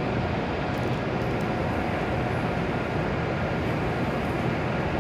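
Steady hum and rumble of a stationary W7 series shinkansen train's onboard equipment running at the platform, with an even level throughout.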